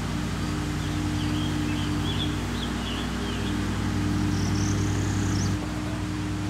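A steady low mechanical hum from a running motor, changing slightly a little over halfway through, with birds chirping faintly in the first half.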